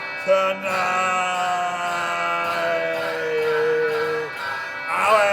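Singing: a voice holds long, drawn-out notes of a chant-like tune, with a short break and a new note about five seconds in.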